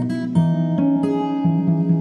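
Background music on acoustic guitar: a run of plucked notes, each ringing on under the next.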